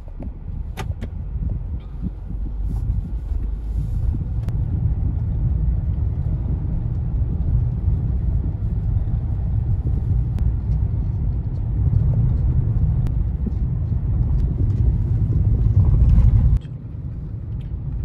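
Steady low rumble of a moving vehicle, swelling and easing a little, which cuts off suddenly near the end.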